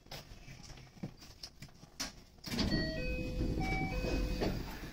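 Electric train standing at a platform: about two and a half seconds in, a short electronic chime of several clear notes sounds over a low rumble and clatter, as the doors open. Before that, only faint clicks.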